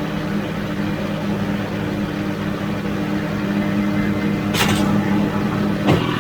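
Tractor engine running steadily, driving a McHale V660 round baler while baling alfalfa. There is a short hiss about four and a half seconds in and a click near the end.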